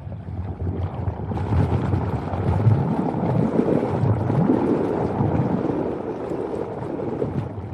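Cinematic sound-effect drone: a dense low rumble with wavering, swooping tones through it. It thickens about a second and a half in and fades away near the end.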